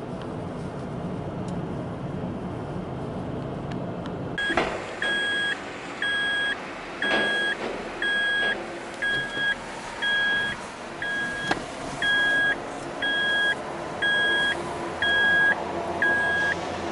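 Road noise inside a moving car, then, after a sudden cut, a steady electronic warning beep repeating about once a second, each beep about half a second long, over low vehicle noise, with a few sharp knocks as the car rolls onto the ferry deck.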